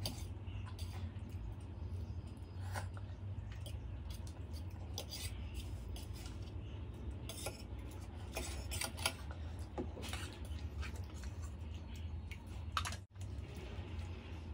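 Metal spoon clinking and scraping against a steel plate while noodles are scooped up and eaten, heard close as scattered short clicks, with chewing in between, over a steady low hum.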